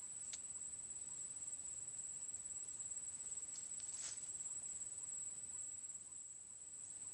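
Faint, steady high-pitched insect trill that holds one pitch throughout, with a couple of small clicks, one near the start and one about four seconds in.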